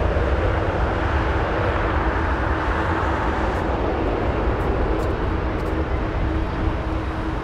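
Boeing 767-300ER jet engines running at taxi power: a steady engine noise with a constant low hum under it.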